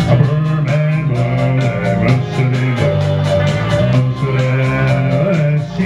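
A man singing into a microphone over backing music with guitar and a steady beat.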